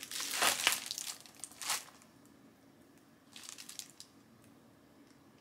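Plastic Amazon padded mailer being torn open and crinkled: a run of tearing and rustling bursts over the first two seconds, then a shorter rustle about three and a half seconds in.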